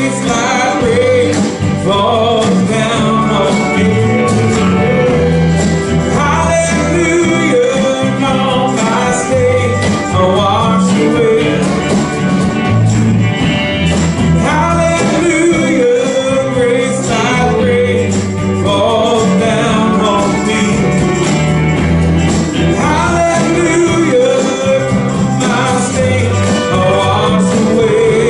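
Live worship band playing a song with a singer, electric guitar, bass and drums.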